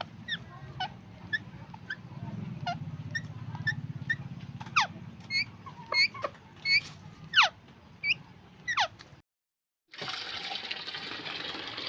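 Ringneck parrot giving a rapid series of short, sharp calls, many sweeping down in pitch. The sound cuts off suddenly about nine seconds in, and a steady rushing hiss follows near the end.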